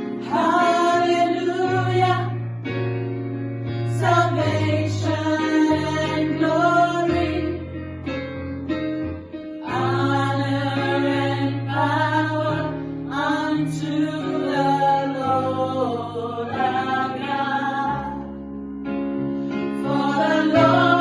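Gospel choir singing in phrases over instrumental accompaniment that holds sustained low chords.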